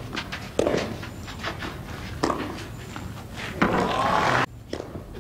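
Tennis rally on a clay court: the racket strikes the ball every second or so, starting with the serve. Near the end a louder burst of noise lasts about a second and cuts off suddenly.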